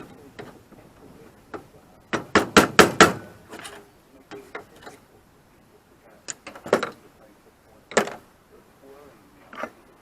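Hammer blows on the steel bodywork of a Citroën 2CV while a spot-welded panel is being knocked apart: a quick run of about six strikes a couple of seconds in, then scattered single knocks, the loudest about eight seconds in.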